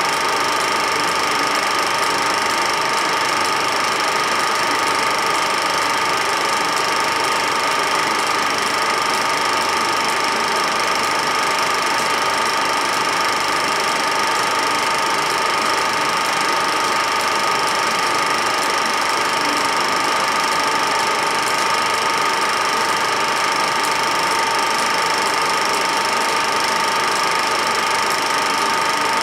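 Film projector running: a steady mechanical whirr and hiss with a constant high whine, unchanging through the picture cuts.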